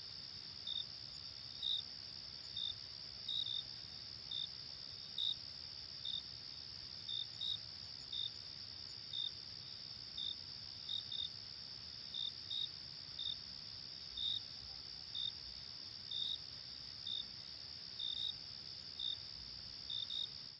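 Crickets chirping: a steady high-pitched trill underneath, with louder short chirps about once a second.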